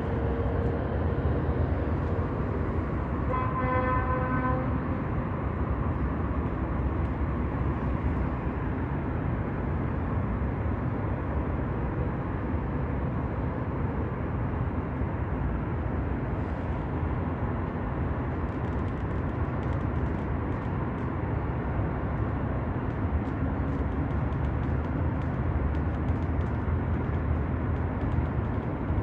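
Steady low rumble of outdoor background noise, with a single short vehicle horn toot about three and a half seconds in.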